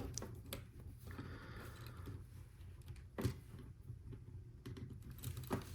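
Lego Technic plastic pieces being handled and fitted together, with a few sharp clicks; the loudest is about three seconds in and another comes near the end.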